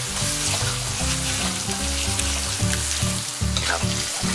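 Red curry paste frying in hot oil in a wok, sizzling steadily as it is stirred.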